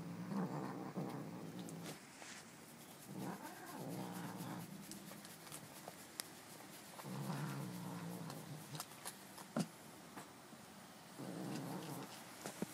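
Domestic cat growling: four long, low, drawn-out growls, roughly one every four seconds.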